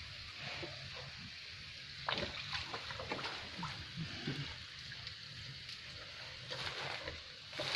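Cattle slurping and sloshing a watery soaked-feed mash from plastic basins, with irregular wet splashes and sucking sounds.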